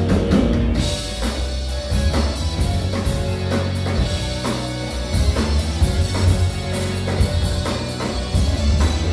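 Live rock band playing amplified: drum kit keeping a beat under electric guitar, bass guitar and keyboard, with a heavy bass low end.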